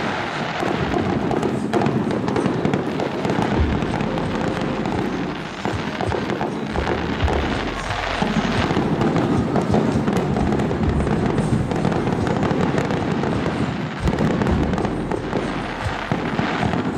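Fireworks display: aerial shells bursting with continuous dense crackling, and a few deep booms, around the middle and again near the end.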